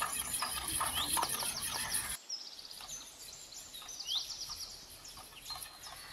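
A spoon stirring and scraping thick sour curd in a steel bowl, with quick clicks, while small birds chirp. About two seconds in the stirring sound stops, and bird chirps and short trills carry on alone, some sweeping quickly downward.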